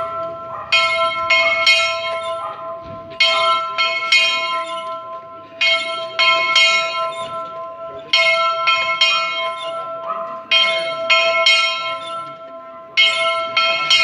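Church bell ringing: clusters of two or three clanging strikes about every two and a half seconds, with the bell's hum ringing on between them.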